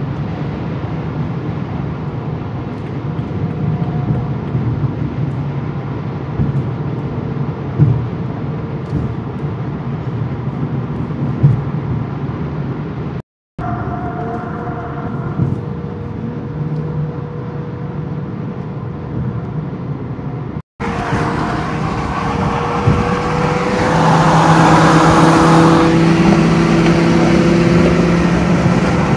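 Car cabin noise at highway speed: steady tyre and road roar under a low engine drone. The sound cuts out completely twice, briefly. About 24 s in it grows louder with a stronger, steady engine note.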